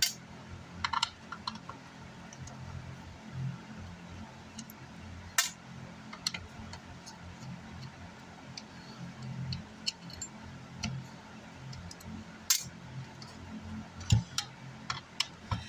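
Screws being worked out of a car amplifier's case with a screwdriver: irregular clicks and small metallic clinks of the screwdriver, screws and case, over a low steady hum.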